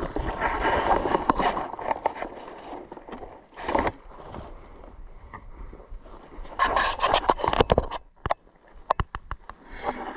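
Rustling and scraping of a person moving through forest undergrowth, coming in irregular bursts, with a run of short sharp clicks near the end.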